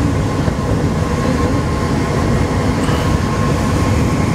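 Alstom NS-16 metro train running between stations, heard from inside the driver's cab: a steady low rumble of wheels on rail with a thin steady tone above it.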